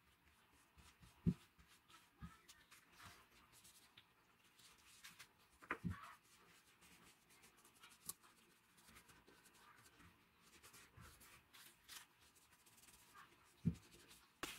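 A cloth rag rubbing over a wooden knife handle, a faint scratchy rubbing, with three soft knocks as the cleaver is shifted on the concrete floor.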